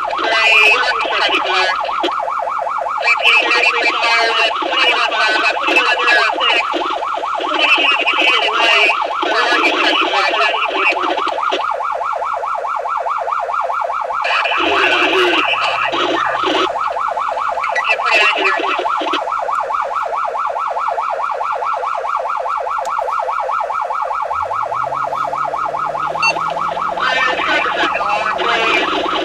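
Emergency vehicle's electronic siren running in a fast yelp, a rapidly warbling tone that carries on without a break. Twice in the second half a low engine note rises as the vehicle speeds up.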